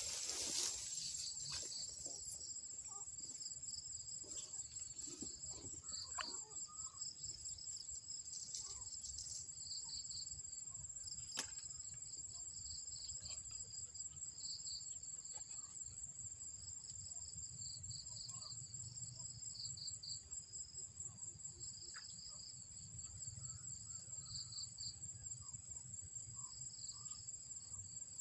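Insects chirping steadily in the waterside grass: one continuous high trill over a lower chirp that pulses on and off. Brief rustling at the start and a single click about eleven seconds in.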